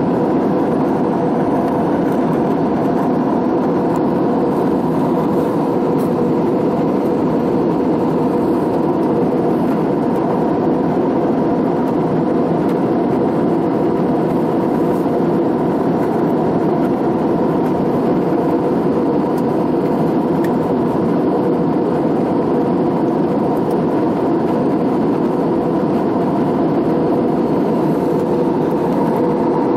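Steady in-flight cabin noise of an Airbus A320-family jet airliner heard at a window seat: the even rush of engines and airflow, with a constant hum-like tone running through it.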